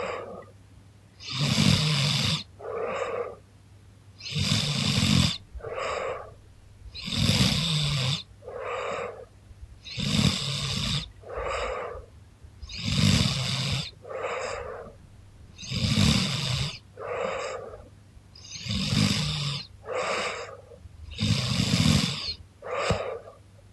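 A sleeping young woman snoring in a steady rhythm: a loud snore about every three seconds, each followed by a shorter, quieter breath.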